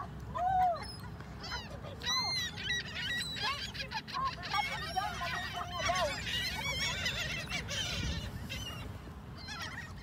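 A flock of gulls calling as they mob people for food: many short, overlapping cries, densest in the middle of the stretch.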